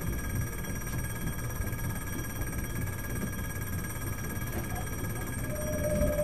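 Tokyu-style ATS warning bell ringing continuously in the cab of a Tokyu 7700 series train, over the train's low running rumble. A steady higher tone joins near the end.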